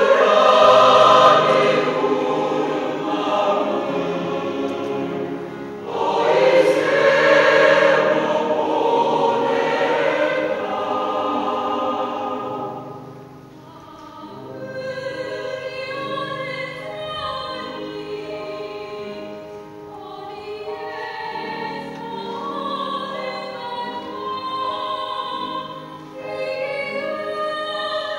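Mixed choir of men's and women's voices singing a Korean choral song, full and loud, with a fresh swell about six seconds in, then dropping to a softer, quieter passage about halfway through.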